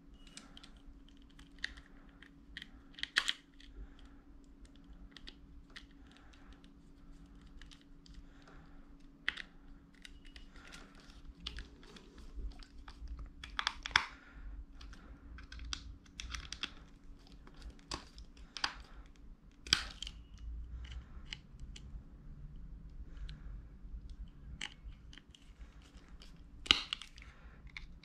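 Small plastic phone-mount parts and a precision screwdriver being handled as screws are driven in: scattered clicks and light taps, a few sharper ones, over a faint steady hum.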